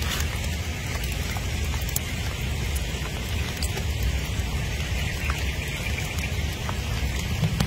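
Steady hiss of rain falling on wet ground, with scattered faint ticks and a low hum underneath.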